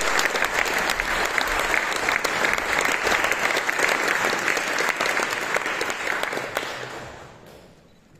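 Audience applauding, a steady clatter of many hands clapping that fades away over the last two seconds.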